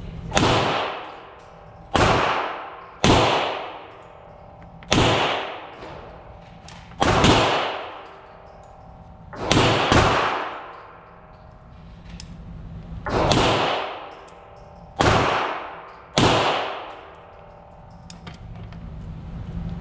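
Gunshots from other lanes of an indoor range, about ten at irregular intervals, each followed by about a second of echo off the range walls.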